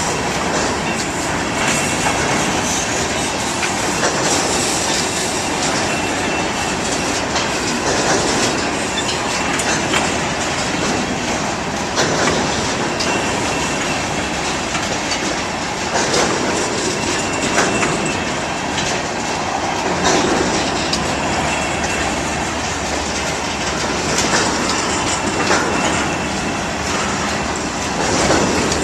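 Freight cars of an Iowa Interstate Railroad train rolling past, their steel wheels clacking over the rail joints every couple of seconds amid a steady rumble. A faint high squeal runs through it.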